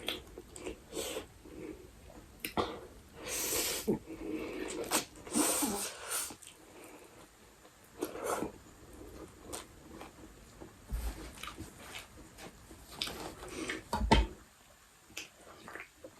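Close-up eating sounds: a couple of long hissing slurps and sharp breaths, with brief wet smacks and chewing clicks in between.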